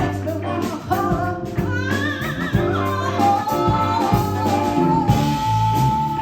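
A live band playing: bass and drums under a lead melody that bends with vibrato, then holds one long wavering note from about halfway through.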